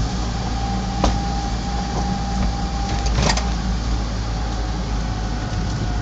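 Steady engine and road noise inside the cabin of a moving Smart car, with a faint steady whine, a single sharp knock about a second in and a brief rattle a little after three seconds.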